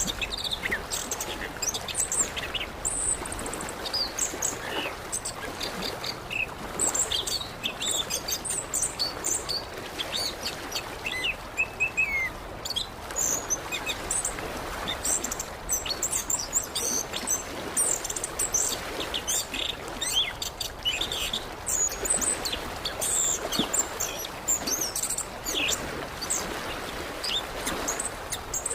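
Orange-headed thrush singing a long run of quick, varied high chirps and whistles over a steady background hiss.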